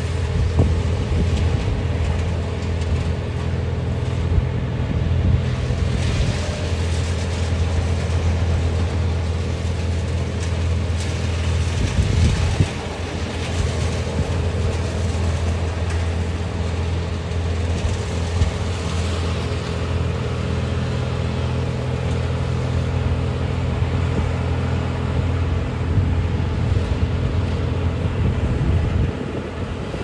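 Mobile crane's diesel engine running steadily with a low hum while it hoists a cut section of spruce tree, easing off just before the end. Some wind on the microphone.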